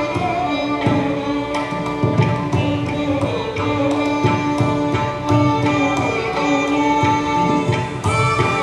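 Live Carnatic music: a sustained melodic line that glides between notes, over steady hand-drum strokes.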